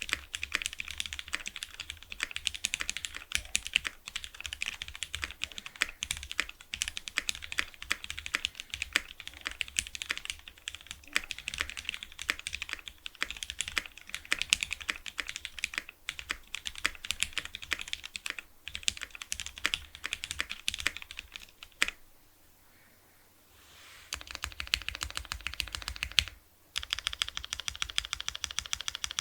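Fast, steady typing on a Keycult No. 1/65 custom mechanical keyboard with lubed, filmed Cherry MX Black linear switches, an aluminum plate and GMK Botanical keycaps. The typing stops for about two seconds roughly three-quarters of the way through, then stops again briefly soon after.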